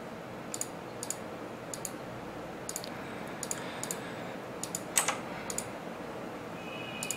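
Computer mouse and keyboard clicking: scattered light clicks, often in pairs, every half second or so, with one louder click about five seconds in. A brief high tone sounds near the end.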